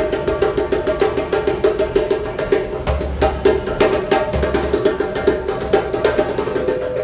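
Hand drum struck with the bare hands in a fast, dense rhythm of quick strokes, over a steady hum.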